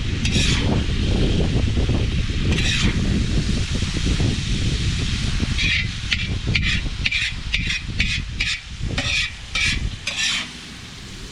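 Steak fajitas frying and sizzling in a pan while a utensil stirs them. The metal scraping strokes on the pan come once or twice early on, then in a quick run of about two or three a second during the second half.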